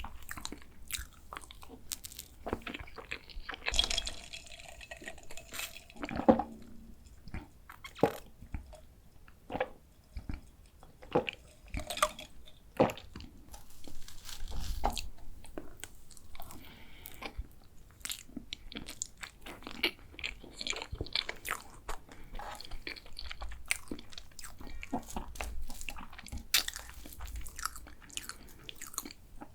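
Close-miked mouth sounds of dessert eating: irregular bites, crunches and chewing, with scattered small clicks.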